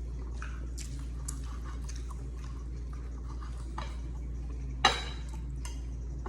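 Eating sounds: chewing with small scattered clicks, and one sharp snap about five seconds in.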